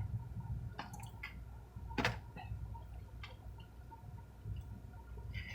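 A few faint, scattered clicks and taps from eating and handling food, the sharpest about two seconds in, over a steady low rumble.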